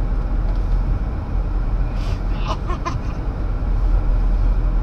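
Steady road and engine noise inside a moving car's cabin, a low rumble.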